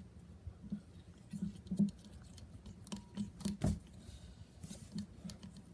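Utensil stirring a glue-and-water slime mixture in a container, making irregular soft scrapes and taps against the container, with one louder knock about three and a half seconds in.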